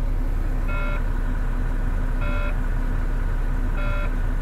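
Heavy truck's diesel engine idling just after start-up, with a warning chime beeping three times, about every one and a half seconds: the low air pressure alarm, sounding while the air brake system builds up pressure.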